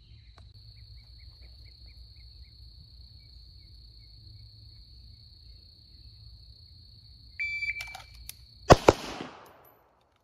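About seven seconds in, a shot-timer beep. A little over a second later come two fast, loud shots from a 9mm Springfield Armory 1911 pistol, a fraction of a second apart: the first string of a draw-from-holster qualification.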